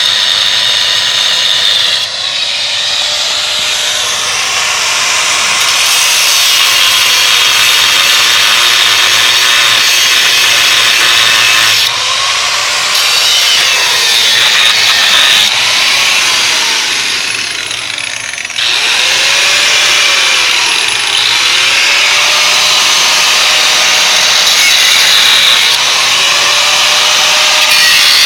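Abrasive cut-off wheel grinding through steel rivets, its whine dipping in pitch as it bites and recovering as the load eases off. It runs almost continuously, with short breaks about 2, 12 and 18 seconds in.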